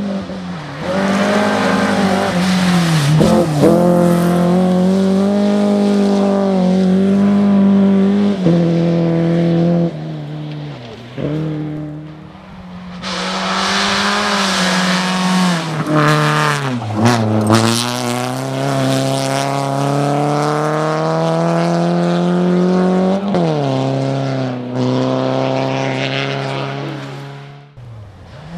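Rally car engines at high revs on a gravel stage, two cars one after the other with a short lull between them about twelve seconds in. Each engine note holds high, then dips sharply and climbs back a few times as the driver lifts and re-accelerates.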